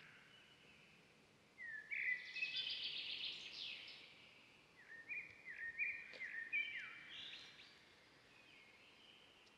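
Bird calls over a faint outdoor hiss: one call of about two seconds starting a second and a half in, then a string of short, quickly repeated notes a few seconds later.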